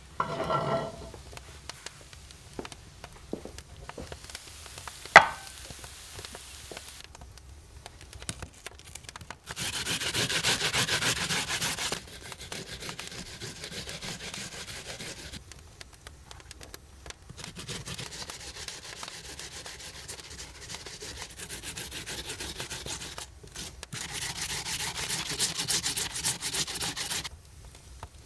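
Food being grated on a flat metal hand grater into an enamel bowl, in long runs of quick scraping strokes. There is a single sharp clink about five seconds in.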